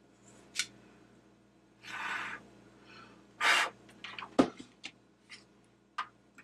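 Bench soldering work with a pistol-grip soldering gun: two short hisses, then a sharp knock and a few light clicks and taps as the soldering gun is set down on the bench.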